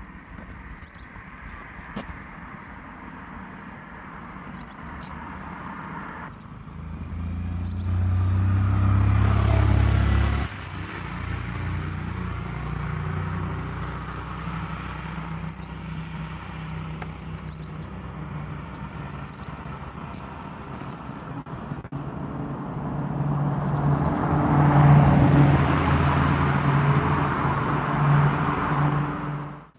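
Motor vehicle engines running, with two louder passes: one building about seven seconds in and stopping sharply near ten seconds, another swelling near the end and cutting off suddenly.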